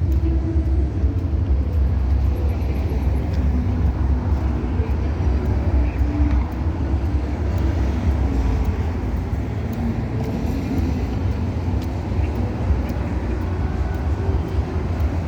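Steady road traffic along a busy city street, cars passing in a continuous wash of noise over a constant low rumble.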